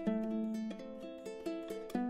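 Background music: plucked ukulele or guitar playing a gentle, Hawaiian-style melody with sustained chords.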